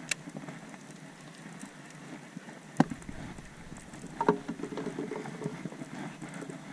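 Small waves lapping and pattering against a fishing boat's hull, with a few sharp knocks on the boat, the loudest about three seconds in and a short cluster a little later.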